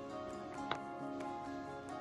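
Background music with held, steady notes, and one sharp click a little before the middle.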